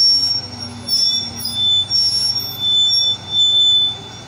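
Mobile crane hoisting a chiller unit: high-pitched metallic squeals come and go over a steady low engine hum, one squeal held from about a second in to near the end.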